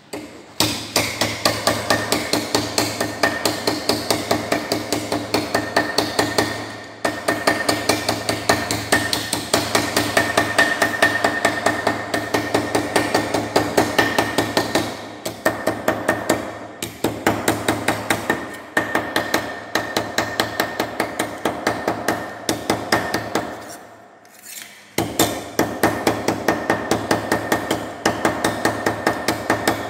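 A wooden mallet taps a thin rolled galvanized iron sheet over a round stake, closing it into a cylinder. The strokes come in quick runs of about three to four a second, each with a short metallic ring from the sheet, and there are brief pauses, the longest about three-quarters of the way through.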